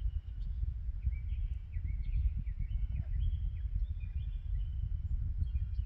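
Outdoor background: a fluctuating low rumble on the microphone, with birds calling in many short, high chirps.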